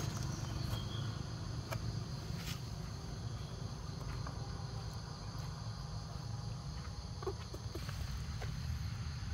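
Steady high chirring of insects over a low, even rumble, with a few faint clicks about two seconds in.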